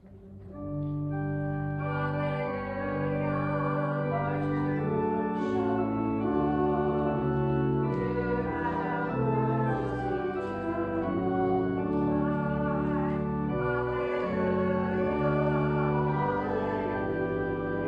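Church organ playing slow, sustained chords that change every second or so, with voices singing along. It swells in about a second in, after a short pause.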